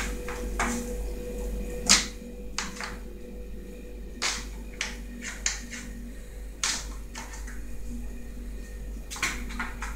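Kittens moving about on a tile floor: scattered sharp clicks and taps, about nine in all at irregular moments, over a steady low hum.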